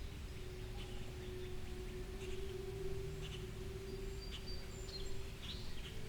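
Outdoor ambience: scattered short bird chirps over a steady low rumble and a held hum.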